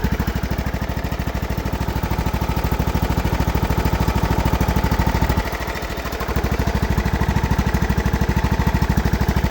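Craftsman riding mower's Briggs & Stratton Platinum 540cc engine running steadily with an even, fast beat, back from a cold start on year-old gasoline. It drops in level for about a second near the middle, then picks up again.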